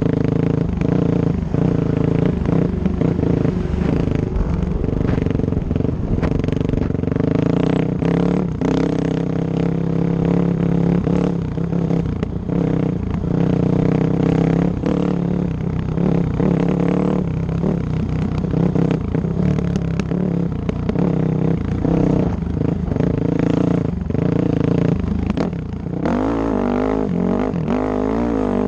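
Dirt bike engine running as the bike is ridden, its pitch rising and falling with the throttle. About 26 seconds in, the pitch starts wavering quickly up and down.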